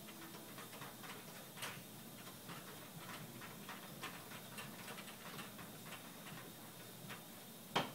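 Faint, scattered small clicks and ticks of telescopic whip antennas being handled and screwed onto a rotating arm mount, with one sharper click near the end.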